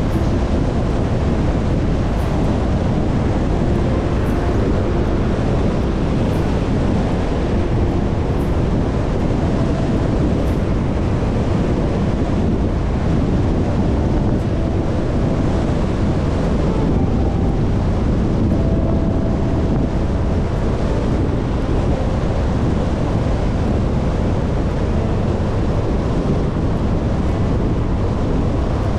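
Steady, loud rushing of wind buffeting the microphone, heaviest in the low end, with a few faint short hums here and there.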